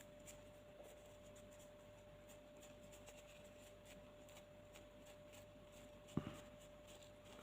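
Near silence with faint clicks and rubbing of small airsoft hop-up unit parts being handled, one sharp knock about six seconds in, over a steady faint hum.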